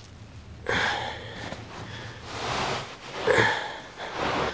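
Scrubbing and rubbing on wet, soapy carpet, with a towel pressed into it: four rough swishes, the first about a second in and the last near the end.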